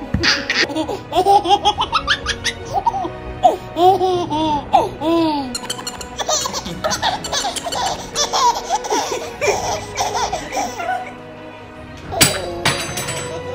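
Babies laughing in a string of short clips, bursts of giggles one after another, over steady background music. A young child's laughter comes in loudly near the end.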